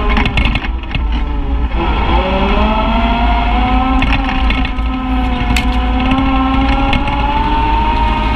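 Side-by-side UTV engine running while driving a bumpy dirt trail: the engine note drops briefly about a second in, then rises as it accelerates about two seconds in and holds steady, slowly climbing. Short knocks and rattles from the vehicle over bumps come through it.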